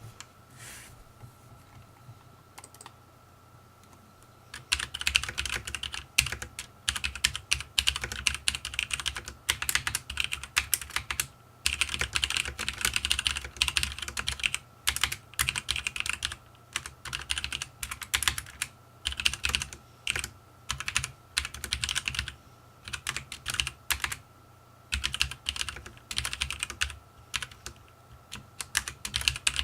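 Typing on a Nixeus Moda V2 tenkeyless mechanical keyboard with brown switches: a few single key clicks at first, then from about five seconds in, fast runs of keystrokes in bursts of a second or two with short pauses between them.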